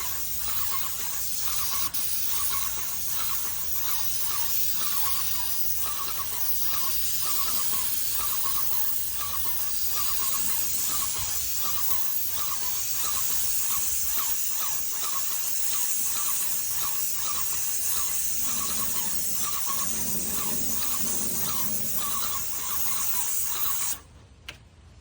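Paint sprayer spraying with a steady hiss and a rhythmic squeak about twice a second, cutting off suddenly near the end.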